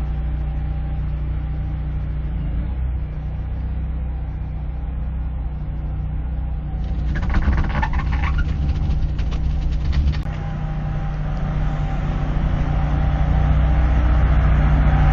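A machine's engine running steadily, with a few seconds of rapid clattering a little past halfway and the engine growing louder near the end.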